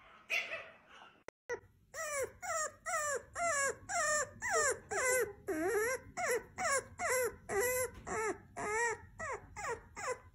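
Bulldog puppy whining in a quick series of short, high yelping whimpers, about two or three a second, each one dipping and rising in pitch. They start about a second and a half in.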